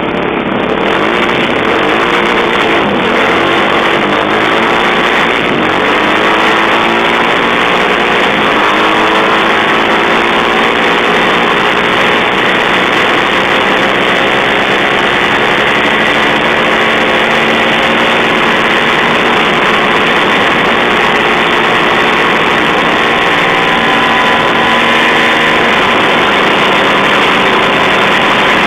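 Single-cylinder motorcycle engine running loudly and close, its pitch rising and falling over the first ten seconds, then holding steady.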